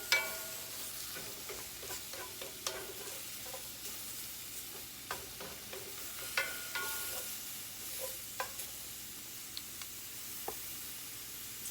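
Mushrooms sizzling in oil in a frying pan, with a utensil stirring them and clicking against the pan now and then.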